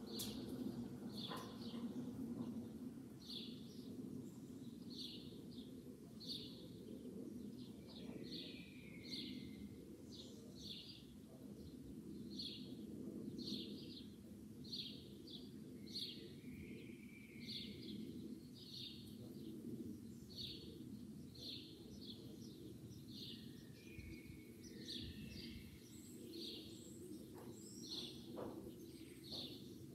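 A small bird chirping over and over, one short note about every second, with a few lower chirps between, over a steady low outdoor hum.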